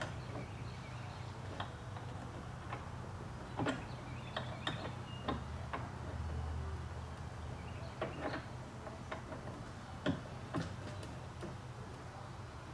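Irregular light metal clicks and taps as a bracket and Allen screw are worked into place in the end of a bed slide's metal track rail while lining up the screw hole.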